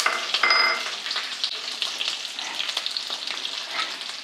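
Freshly added sliced onions, curry leaves and garlic sizzling and crackling in hot oil in a frying pan. There is a short ringing clink about half a second in, and the sizzle eases slightly quieter towards the end.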